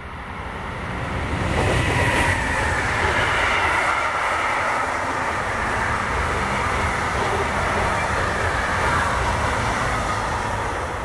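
Freight train passing: a red electric locomotive hauling lorry trailers on pocket wagons, its wheels running on the rails. It grows louder over the first two seconds, holds steady, and starts to fade near the end.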